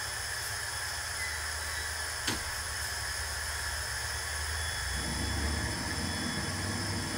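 Steady hiss of a propane grill with its gas turned on, with a low hum underneath; about five seconds in, a low rushing noise joins as a burning paper towel is held to the burner. There is a single short click a little over two seconds in.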